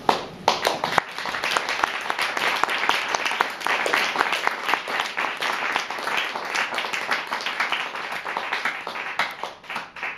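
Audience applauding, a dense patter of many hands clapping that starts abruptly and thins out near the end.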